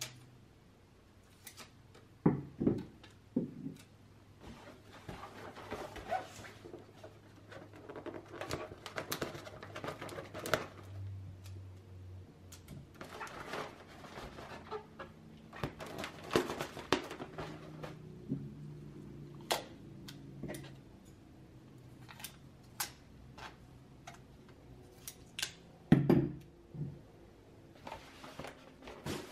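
Handling sounds of balloon work: scissors snipping tape and tape pressed onto an inflated foil balloon, with the foil crinkling and rustling as it is turned. Scattered sharp taps and clicks, the loudest about two seconds in and again near the end.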